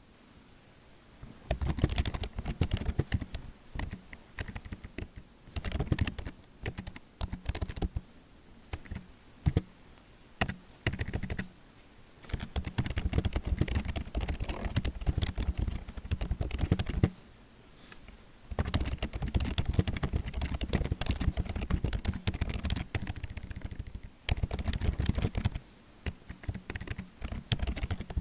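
Typing on a computer keyboard: rapid runs of key clicks in bursts of a few seconds, with short pauses between them.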